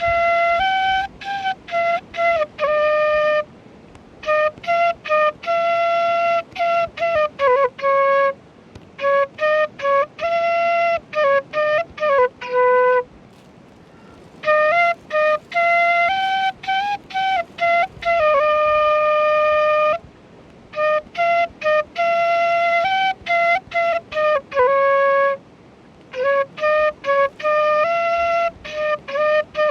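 Solo flute playing a melody in phrases a few seconds long, with short breaks between them and no accompaniment.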